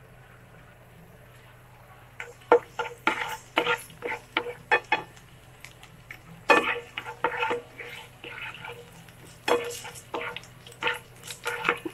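Spatula knocking and scraping against a non-stick frying pan as chopped garlic is stirred in oil, in irregular clusters of sharp taps starting about two seconds in.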